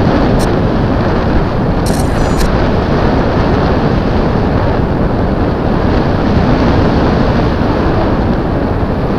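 Wind buffeting the microphone of an action camera riding on board an XK A700B RC airplane in flight: a loud, steady rushing noise, with a few short clicks about two seconds in.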